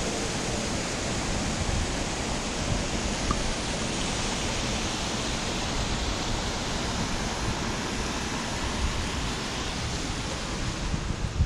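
Steady rushing noise, spread evenly from low to high, with uneven low buffeting underneath.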